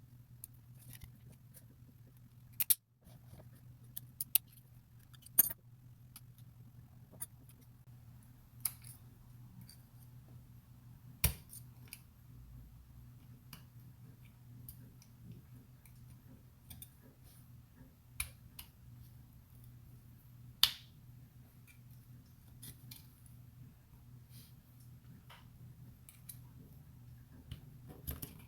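Small steel parts and a hand tool clicking sharply now and then against a Mossberg 500 trigger group as its springs are worked into place by hand, a handful of louder clicks among fainter ticks, over a steady low hum.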